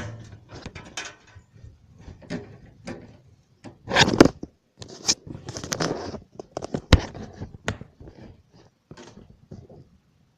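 Hands handling computer parts and cables in a desktop PC cabinet: irregular clicks, knocks and rustles, with a louder rattle about four seconds in and a sharp click near seven seconds.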